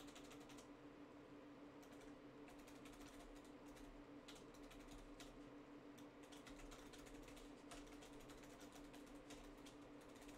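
Computer keyboard typing in quick uneven runs of keystrokes, faint, over a low steady hum.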